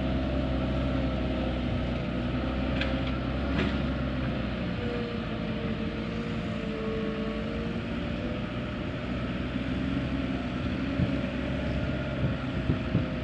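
Heavy diesel engine of construction machinery running steadily, with a few short knocks near the end.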